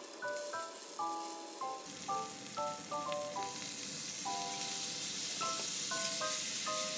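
Salmon fillets sizzling in a hot frying pan. The sizzle grows louder from about halfway through as soy sauce is poured over them. Background music with a melody of short, bright notes plays throughout.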